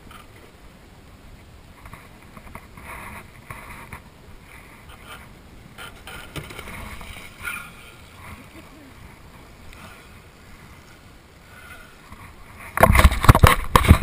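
A faint, even wash of water and wind around an open fishing boat. About a second before the end come a run of very loud knocks and bangs close to the microphone.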